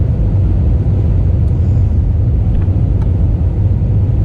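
Steady low rumble of an Airbus A320 in flight, heard inside the passenger cabin on final approach: engine and airflow noise, with a faint steady hum above it.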